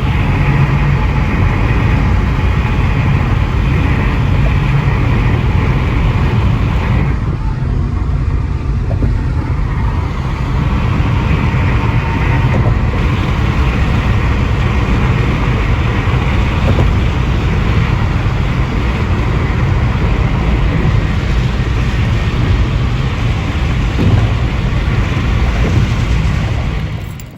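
Loud, steady road and engine rumble inside a moving car, heaviest in the low end, cutting off suddenly at the end.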